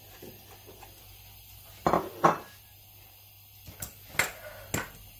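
Chopped onion being added to a stainless steel cooking pot, with sharp clinks and knocks of dishware against the pot: two about two seconds in, then four more a little later.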